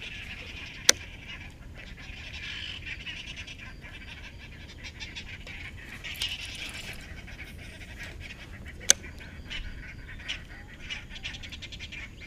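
Baitcasting reel being wound during a lure retrieve: a raspy whirring that comes and goes in short bursts. Two sharp clicks, the loudest sounds, come about a second in and again about nine seconds in.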